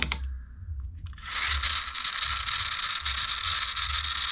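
Pull-back motor of a toy hot rod car whirring steadily, starting about a second in, after being wound by pulling the car backwards.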